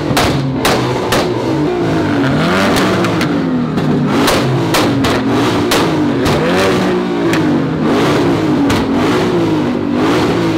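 Ford Mustang being revved hard at a standstill, its engine note rising and falling again and again, with loud exhaust pops and cracks as flames shoot from the tailpipes.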